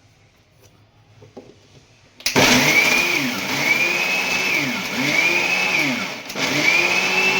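Small kitchen mixer-grinder jar coarsely grinding plain gathiya, run in pulses: from about two seconds in the motor speeds up with a rising whine and drops back about four times.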